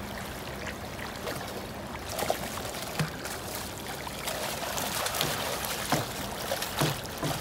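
Moving river water rushing and lapping, with sharp splashes from about two seconds in as a hooked fish thrashes at the surface and is led into a landing net.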